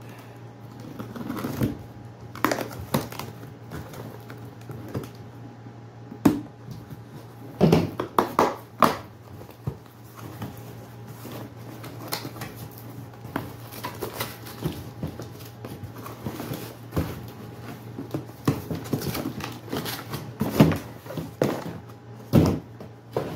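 A cardboard product box being cut open and unpacked by hand: a knife slitting the packing tape, then irregular rustles, scrapes and knocks of cardboard flaps and inserts as the contents are pulled out.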